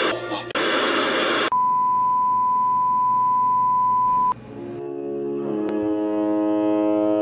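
A burst of static hiss with a brief dropout, then a steady 1 kHz colour-bar test tone that cuts off suddenly about four seconds in. Classical music with bowed strings then fades in.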